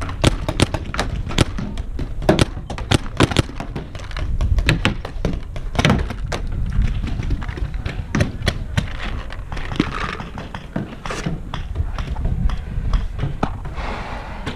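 Paintball fire: a rapid, irregular string of sharp pops and thunks, densest in the first few seconds and thinning out after, over a steady low rumble.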